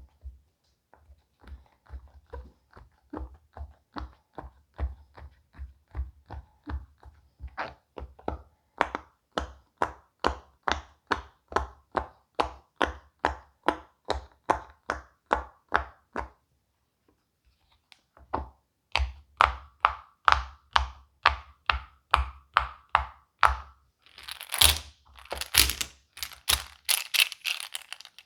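Silicone pop-it fidget toy bubbles pressed down one after another, each giving a short pop or thunk, about two to three a second, with a short break partway through. Near the end the pops give way to a crinkling, rustling sound.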